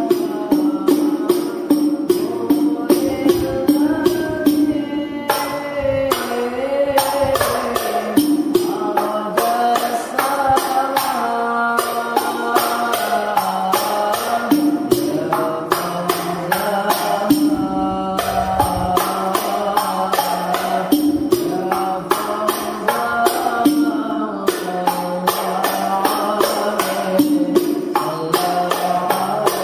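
Background music of rebana frame drums playing a fast, steady rhythm, with a melody line gliding over it.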